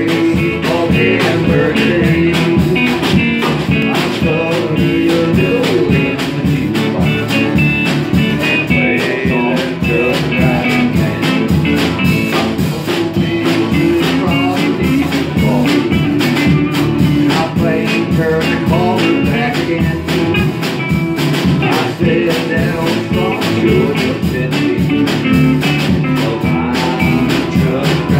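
Live band playing a country song: electric guitar and acoustic guitar over a drum kit keeping a steady beat.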